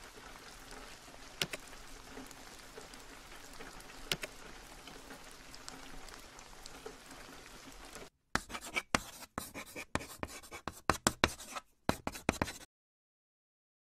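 Faint steady rain with a couple of light ticks. About eight seconds in it gives way to a quick run of short, scratchy chalk-on-blackboard strokes, which cut off suddenly.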